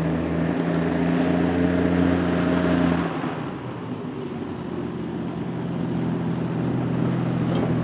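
Engine of a six-wheeled military cargo truck running as it drives in. About three seconds in the engine note drops away to a lower, rougher sound as the truck slows, and the steady engine tone comes back near the end.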